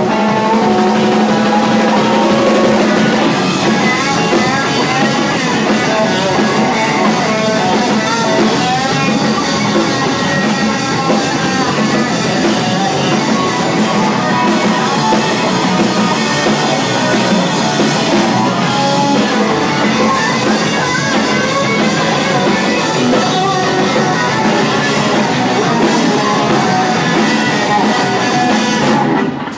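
Garage rock band playing live: electric guitar and drum kit, the cymbals coming in about three seconds in. The band stops abruptly right at the end.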